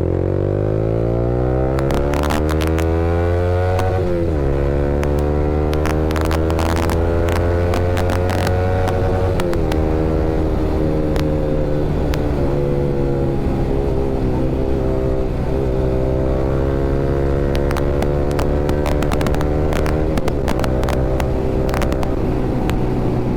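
Yamaha R15 V3's single-cylinder engine through a loud Akrapovic R9 aftermarket exhaust, accelerating with rising pitch and shifting up about four and again about nine seconds in, then holding a fairly steady speed with small dips in pitch. Scattered sharp clicks sound over it.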